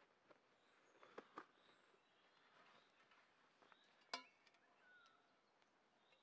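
Faint handling sounds of a cloth pouch being rummaged: soft rustles and a few small clicks, with one sharp, briefly ringing clink about four seconds in. Quiet forest ambience lies underneath.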